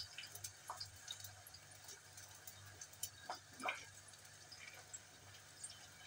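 Button mushrooms sliced by hand with a small kitchen knife over a steel pot: soft scattered ticks of the blade through the mushroom, with two short drip-like plinks a little past halfway, over a faint low hum.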